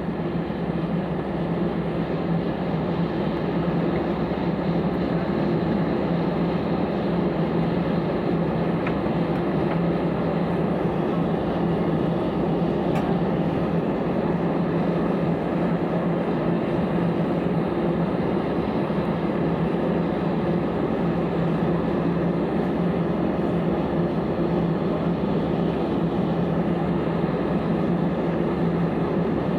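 Steady cabin noise inside an AirAsia India airliner on the ground: a constant rush of air with a low, even hum. There is one faint click about thirteen seconds in.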